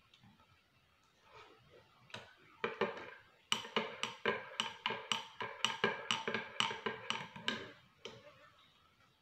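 A spoon stirring milk in a mug, clinking against its side about three times a second with a short ring to each clink, after a few scattered taps.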